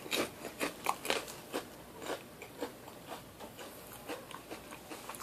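Someone chewing potato chips: a run of short, sharp crunches, several a second at first, thinning out toward the end.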